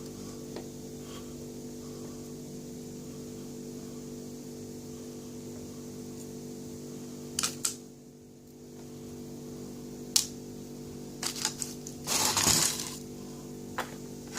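A few sharp clicks and a brief scraping rattle of small metal lock parts being handled, over a steady electrical hum.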